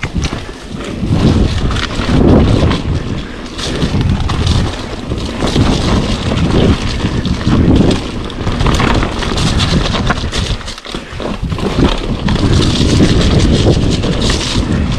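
Mountain bike descending a dirt trail at speed: wind buffets the microphone in gusting swells, while the tyres roll over dirt and the bike rattles over bumps in quick ticks.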